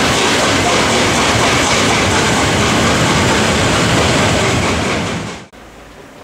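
A train passing close by, its wheels clattering over the rail joints in a loud, steady rush that cuts off abruptly about five and a half seconds in.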